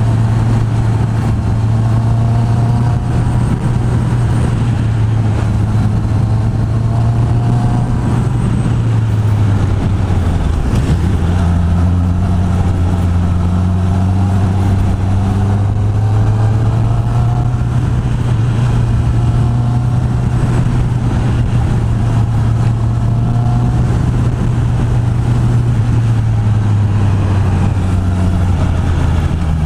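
Honda CB650R's inline-four engine running through its stock exhaust at steady revs, under a constant rush of noise. The note dips about ten seconds in, slowly climbs back, and drops again near the end.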